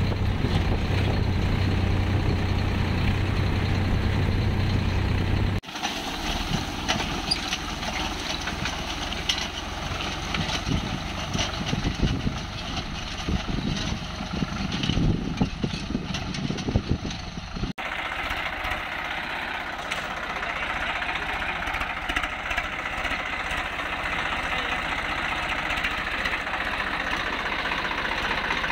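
Swaraj 855 FE tractor's diesel engine running steadily under load as it pulls a seed drill through soil. The sound changes abruptly about six seconds in and again about eighteen seconds in, with the engine heard close at the start and near the end.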